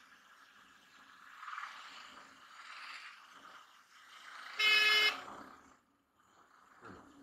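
A vehicle horn honks once, a short blast of about half a second, a little past the middle, over the steady noise of a motorcycle running and street traffic.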